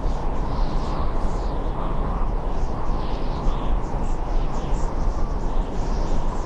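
Steady wind rumble on the microphone and road noise from a loaded touring bicycle riding along a rural road. Short high chirps sound above it throughout.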